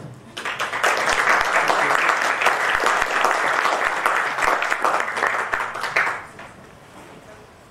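Audience applauding. The clapping starts just after the opening and dies away about six seconds in.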